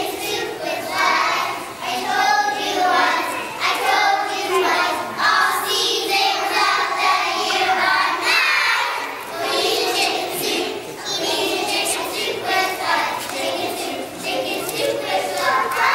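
A class of young children singing a song together in unison.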